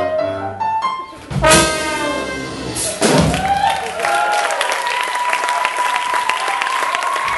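Jazz band of trumpet, trombone, helikon, piano and drums ending a song: a few last notes, then a loud final chord about one and a half seconds in that rings out. Audience applause and cheers start about three seconds in, with a long steady high tone held over the applause.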